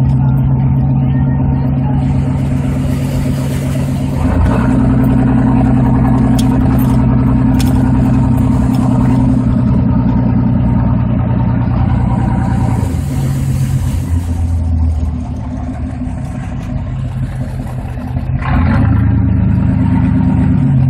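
Vehicle engine running under load, its revs stepping up about four seconds in, easing back after about thirteen seconds, dropping to a quieter stretch, and rising again near the end. A hissing rush rides over it twice.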